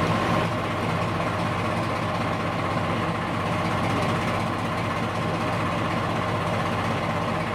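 Small diesel shunting locomotive idling steadily, a low even engine note with no change in speed.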